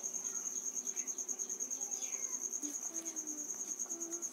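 A cricket chirping in the background: a steady high-pitched tone pulsing rapidly and evenly, with no break.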